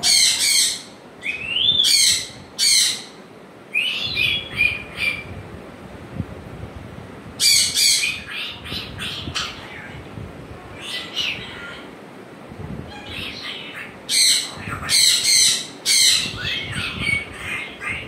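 African grey parrot squawking and whistling: loud, high-pitched calls in short clusters, some sliding in pitch, with brief pauses between them.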